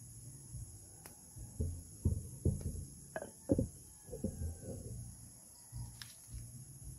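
Steady high-pitched drone of insects, with a few soft low knocks in the middle.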